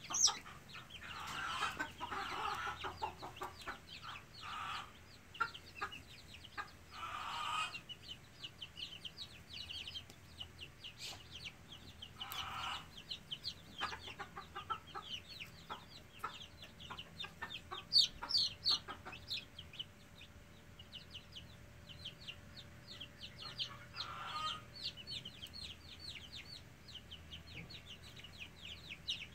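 Young chickens peeping: a steady stream of short, high, falling cheeps, several a second. A few louder, harsher calls come at intervals.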